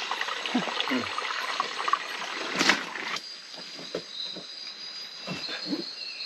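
Rushing water of a jungle stream for about three seconds. It then gives way to a steady high insect drone, with a few knocks of boots on rock.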